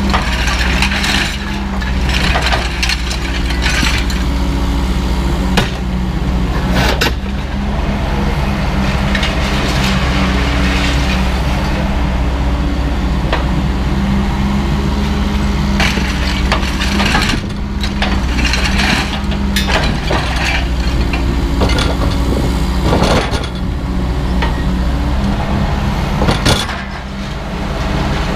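An engine running steadily under repeated crashes, clanks and rattles of heavy scrap metal being unloaded, with the clatter coming in several spells.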